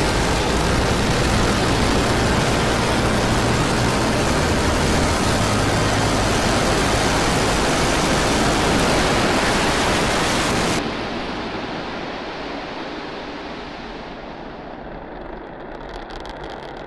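Starship SN10's Raptor rocket engines giving a loud, steady, hissing roar during ascent. About eleven seconds in the sound drops sharply and then fades away.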